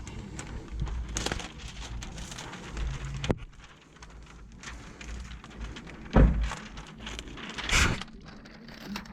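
Crackly rustling and scraping of window tint film being handled against the windshield, with scattered clicks and two louder thuds about six and eight seconds in.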